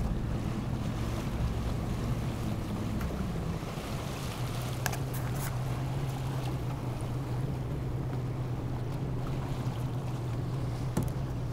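Motorboat engine running steadily on the water, its hum dropping to a lower pitch about three and a half seconds in, with wind buffeting the microphone and water noise.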